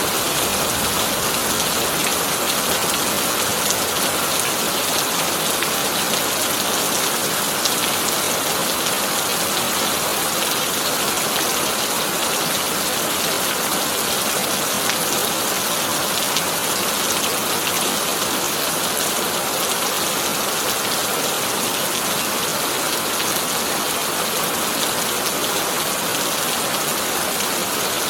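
Heavy rain falling steadily on a tin roof: an even hiss with scattered sharper drop ticks.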